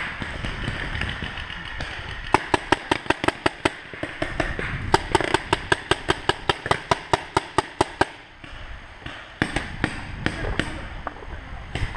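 Paintball marker firing rapid strings of shots, about seven a second: a short string about two seconds in, then a longer one from about five to eight seconds in.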